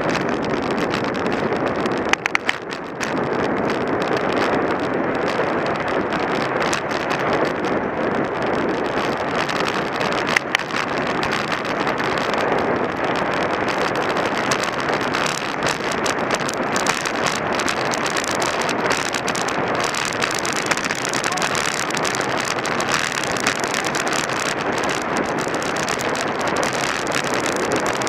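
Steady wind noise on the microphone of a camera riding along on a road bicycle, with a few brief knocks about two seconds in and once more about ten seconds in.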